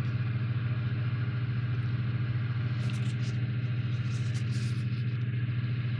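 A steady low mechanical hum with an even pitch, unchanging throughout. Light paper rustling from a handled instruction booklet comes in briefly about halfway through and again a little later.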